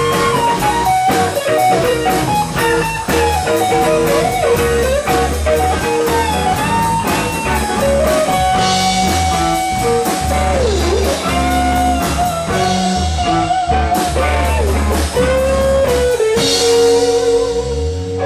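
Live rock band playing an instrumental passage: a lead electric guitar plays bent, wavering notes over drums, cymbals and bass. Near the end the band lands on a chord that rings out.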